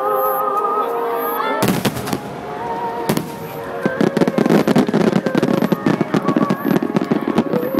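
Fireworks shells bursting: a loud boom about a second and a half in, another a second or so later, then a dense run of rapid crackling from about four seconds on.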